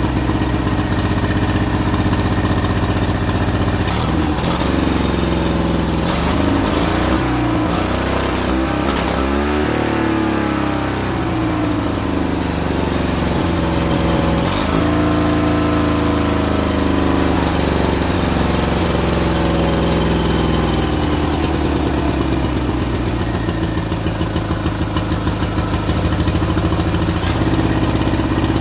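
Turbocharged twin-cylinder Briggs & Stratton engine, fed through a blow-through motorcycle carburetor, running with its revs surging up and down, most sharply between about four and fifteen seconds in. A high whine climbs and falls with one of the surges. The owner blames the over-revving on a badly installed throttle linkage that keeps shifting the cable, and on carburetor tuning not yet sorted.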